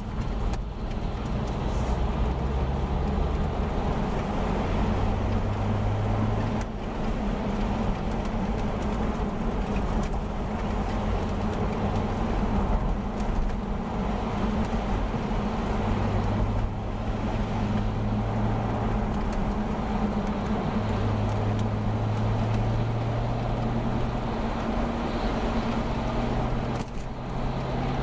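Car engine and tyre noise on a wet road heard from inside the cabin, a steady hum whose low pitch rises and falls several times as the speed changes.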